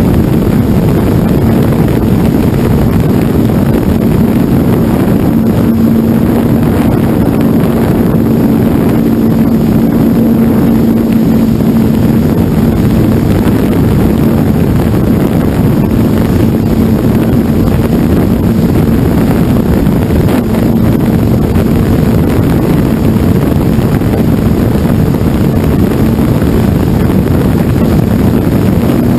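Electric motors and propellers of a hovering FPV multirotor, heard through its onboard camera: a loud, steady propeller hum over rushing air noise.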